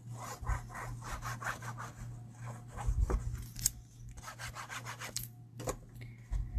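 Liquid glue bottle's applicator tip dragged in quick back-and-forth strokes across the back of a sheet of paper, a rapid scratchy rubbing. A few sharper taps and paper rustles come through, the clearest about three seconds in and again past five seconds.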